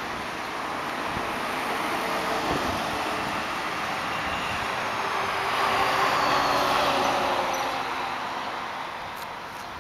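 Road traffic: a steady rush of tyres and engines that swells as a vehicle goes by about six seconds in, then fades toward the end.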